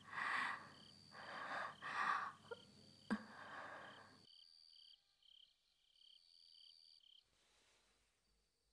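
A woman breathing heavily in several breathy puffs, worn out just after giving birth, over crickets chirping in a steady pulsing rhythm. About four seconds in the breathing cuts off and only the crickets go on, faint, until they fade out near the end.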